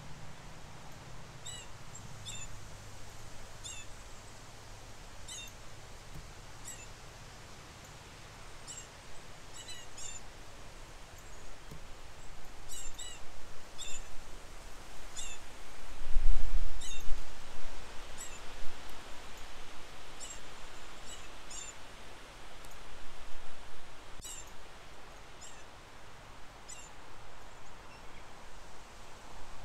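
Wind blowing steadily and gusting, with one strong gust buffeting the microphone about halfway through. Small birds chirp throughout with short, high calls.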